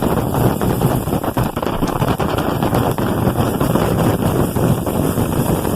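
Stick-welding arc with a thin 2.2 mm electrode burning on a thicker metal plate, a dense, steady crackle.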